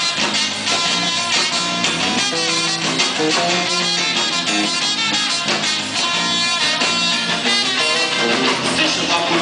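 A live samba rock band playing an instrumental passage, with guitar and drums keeping a steady beat.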